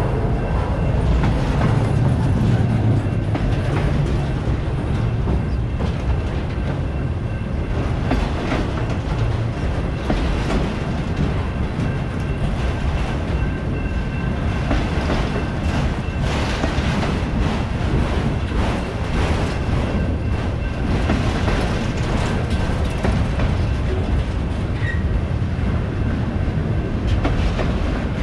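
CSX freight train rolling past with a steady rumble and a continuous run of clicks from the wheels crossing rail joints. The rumble is heavier for the first few seconds.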